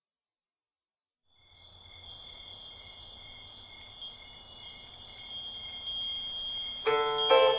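Intro music. Soft, steady, chime-like high tones fade in about a second in and shimmer gently, and plucked notes enter near the end.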